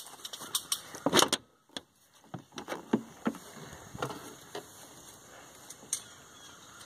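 A car hood being lifted and propped open: a run of sharp clicks and clunks from the latch, hinges and body panel, loudest about a second in, with scattered lighter knocks for a few seconds after and then little more.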